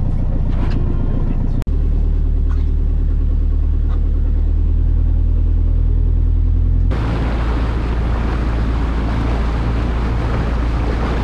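A tour boat's engine running with a steady low hum. About seven seconds in it changes abruptly to the rush of water churned up along the hull and wind on the microphone, with the engine still running underneath.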